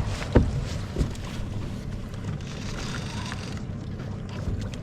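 Steady rumble and wash of a fishing boat at sea, engine and water noise, with two sharp knocks in the first second.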